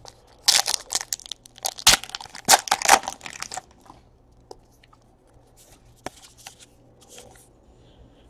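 The wrapper of a Topps Allen & Ginter trading card pack is torn open, a run of crinkling and tearing lasting about three seconds. Then come a few faint clicks as the cards are handled.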